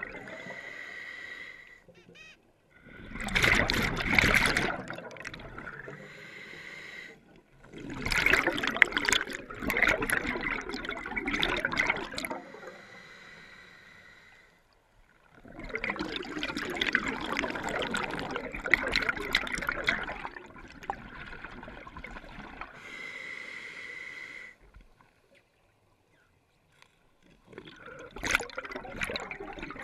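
Scuba diver breathing through a regulator underwater. Steadier hissing stretches, some with a faint whistle, alternate with louder, rougher rushes of exhaust bubbles, about four breaths in all.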